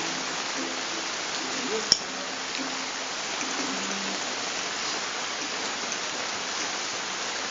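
Steady rain falling, an even hiss, with one sharp click about two seconds in and faint low voices in the first half.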